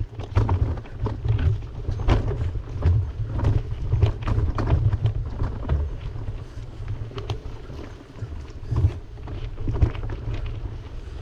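Wind rumbling on the microphone while cycling, with frequent short knocks and rattles over it.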